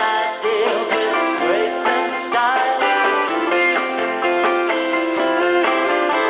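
Live bluegrass-style string-band music with plucked acoustic guitar and banjo, playing steadily.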